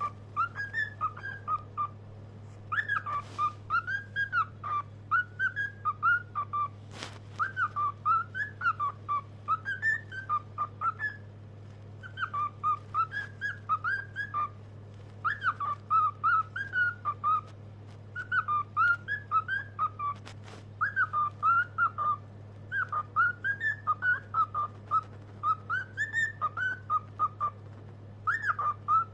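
A cockatiel whistling its song: runs of short notes that rise and fall, in phrases broken by brief pauses. A steady low hum lies underneath.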